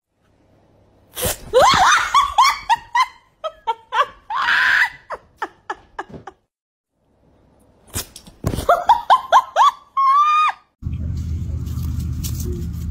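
A person laughing hard in quick high-pitched bursts, in two fits, the second ending in a long squeal. After a cut near the end, a steady low rumble of wind on the microphone outdoors.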